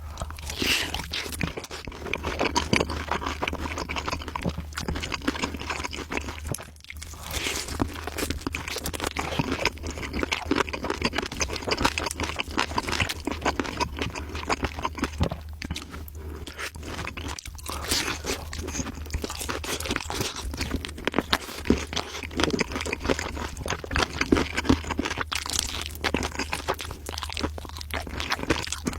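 Close-up crunching and chewing of crisp food, a dense run of irregular crackles and bites, over a steady low hum.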